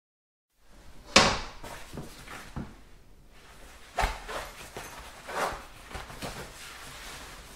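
A bathroom door shutting with a sharp bang about a second in, followed by several lighter knocks and bumps of handling in a small tiled room.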